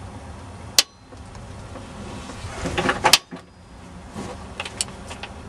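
Wrench and socket on the crankshaft nut of a Daihatsu DL52 turbo diesel, worked by hand to turn the engine over: a sharp metallic click under a second in, a rattling scrape about halfway that ends in a loud click, then a few fainter clicks.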